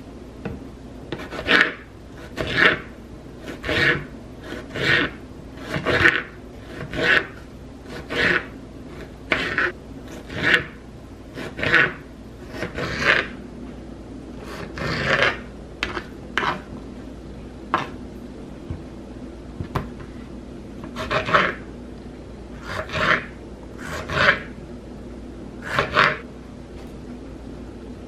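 Kitchen knife cutting tomatoes on a plastic cutting board: short rasping strokes about once a second, with a pause of a few seconds past the middle.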